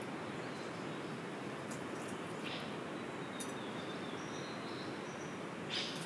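Rainforest ambience: a steady background hiss with a few short bird calls. One call comes about two and a half seconds in, faint thin high whistles follow in the middle, and the loudest call comes sharply just before the end.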